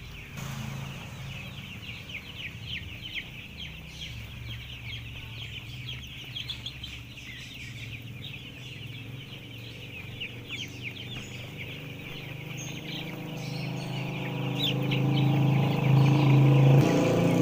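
A flock of five-day-old broiler chicks peeping continuously, many short high cheeps overlapping. Under them runs a steady low hum that grows louder over the last few seconds.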